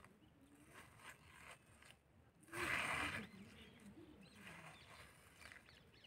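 Metal scoop digging into ripe watermelon flesh: soft wet crunching strokes, with one louder juicy crunch a little before the middle.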